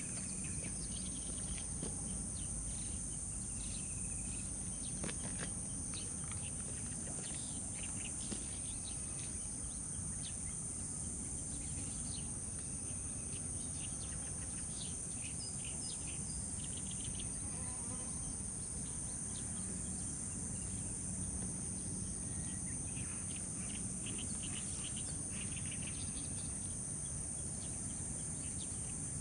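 Steady high-pitched chorus of summer insects, one layer of it starting and stopping every few seconds, with short, scattered bird chirps over a low background rumble.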